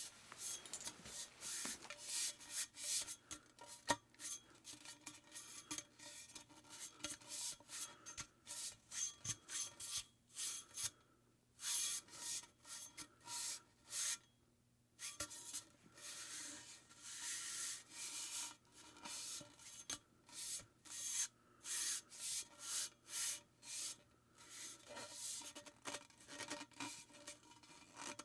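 Fuel rod handle being worked back and forth: a long run of short, irregular scraping, rubbing strokes, with a brief lull about halfway through.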